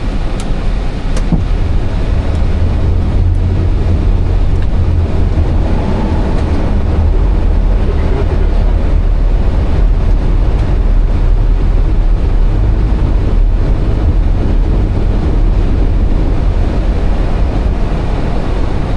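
Steady low rumble of airflow and engine noise inside an Airbus A320's cockpit on final approach.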